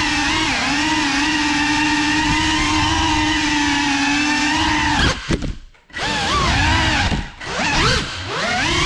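GEPRC 35 cinewhoop FPV drone's motors and propellers whining steadily at a high pitch. About five seconds in the throttle is cut and the whine drops away almost to nothing. It then comes back in quick rises and falls in pitch as the throttle is pumped, with two shorter dips near the end.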